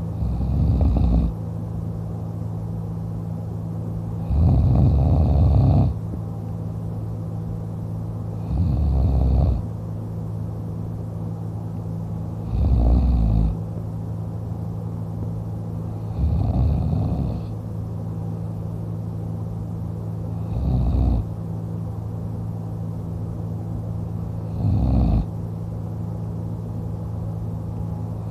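A man snoring in deep sleep, lying on his back with his mouth open. Loud snores come about every four seconds, seven in all, each lasting about a second, over a steady low background hum.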